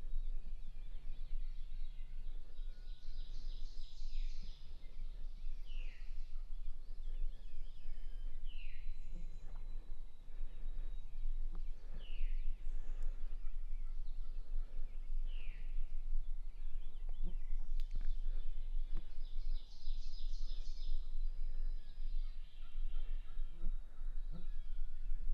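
Wild turkey tom gobbling twice, a rapid pulsing call about four seconds in and again near the end. Other birds give single falling calls in between.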